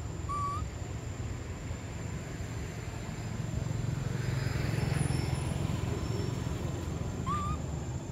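A low outdoor rumble that swells about halfway through and then eases off, like a vehicle passing at a distance. A short rising bird chirp comes near the start and another near the end.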